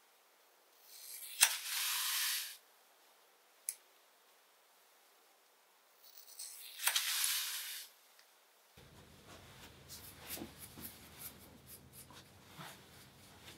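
Hair-cutting scissors cutting through a thick section of bangs twice, each cut a sharp snip followed by about a second of shearing hiss, with a single light click between them. From about nine seconds in, a soft neck-duster brush sweeps over skin and hair, faint scattered ticks over a low hum.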